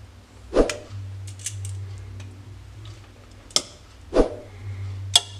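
Raw pork rib pieces dropped one at a time into an aluminium pressure cooker: two dull thuds about three and a half seconds apart, with sharp clicks of metal kitchen tongs between them, over a low steady hum.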